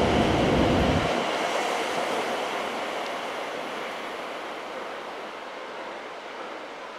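E7 series Shinkansen train departing: the low rumble of its last cars passing stops abruptly about a second in, leaving a rushing noise that fades steadily as the train pulls away.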